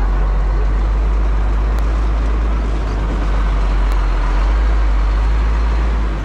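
Loaded Scania truck's diesel engine and road noise heard from inside the cab while driving: a steady, deep drone with an even rushing noise over it.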